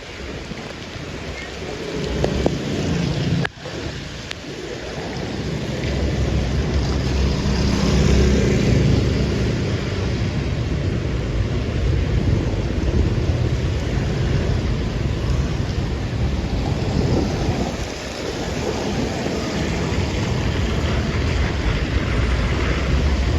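Wet street traffic in the rain: vehicles passing and tyres hissing on the wet road, under a steady rumble of wind on the microphone. The sound drops out sharply for a moment about three and a half seconds in, then the rumble builds again.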